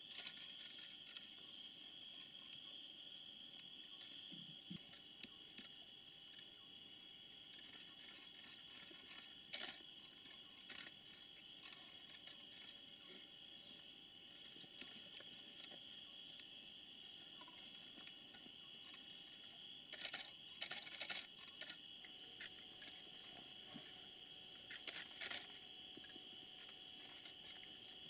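Night-time insect chorus: steady high-pitched trilling at several pitches, with a still higher steady tone joining about two-thirds of the way through. A few short crackles stand out, twice in quick clusters.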